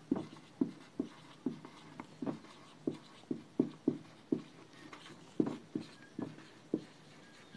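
Marker pen writing on a whiteboard: a run of short squeaks and scrapes, about two or three strokes a second, as the letters are drawn.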